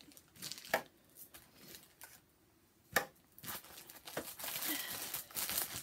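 Rustling and crinkling of things being handled and rummaged through, with two sharp clicks, about a second in and about three seconds in, and a steadier rustle over the last couple of seconds.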